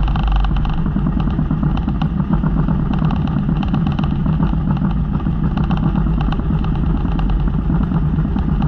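Engine of a motorized outrigger boat (bangka) running steadily.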